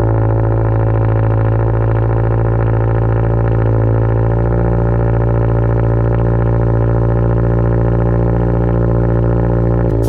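2023 Toyota GR86's flat-four boxer engine idling steadily on its cat-back exhaust just after being started cold to warm up: a loud, even, droning note.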